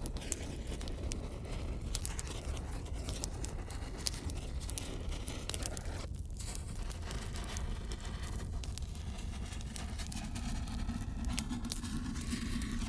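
Eucalyptus branches burning in a fireplace: dense crackling and popping over a steady low rumble of flame. A low steady tone comes in near the end.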